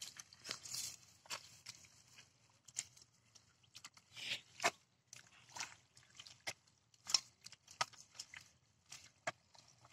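Hands digging and groping through wet mud and dry straw: irregular squelches and crackles, a few of them sharper and louder.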